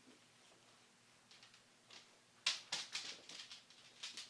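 Crisp rustling and crinkling of a comic book and its plastic bag being handled, faint at first and louder about two and a half seconds in.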